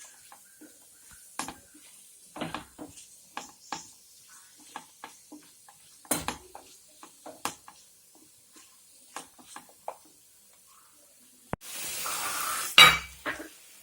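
A utensil stirring and scraping small chicken pieces in a frying pan: irregular clinks and scrapes over a faint sizzle. Near the end comes a short rush of noise that ends in a loud clatter.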